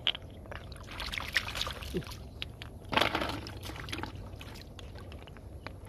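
Hands sloshing and splashing in shallow muddy water while scooping up snails, with scattered small clicks; a louder splash comes about three seconds in.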